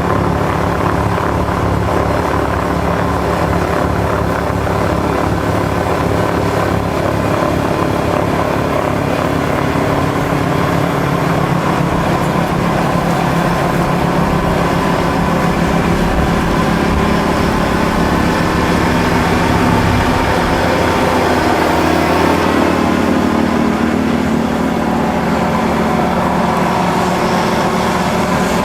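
Kubota L5740 tractor's diesel engine running steadily at working revs; its note shifts about 22 seconds in.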